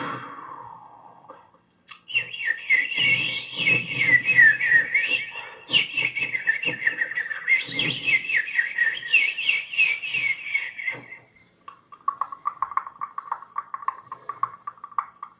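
Warbling, trilling whistles like birdsong: a fast, wavering high trill for most of the stretch, then about three quarters of the way through a lower, steadier warble with a rapid flutter.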